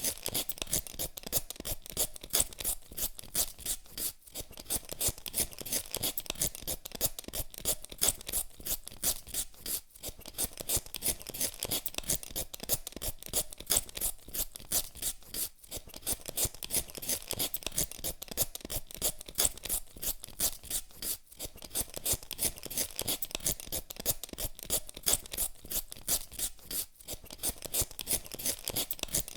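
Hand peeler scraping the skin off a potato in quick repeated strokes, with a brief break about every six seconds.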